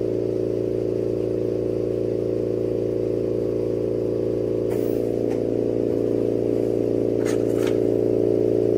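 Steady droning hum and whir of a lampworking torch and its bench equipment running while a glass bead is heated through in the flame, with a few light clicks about five seconds in and near the end.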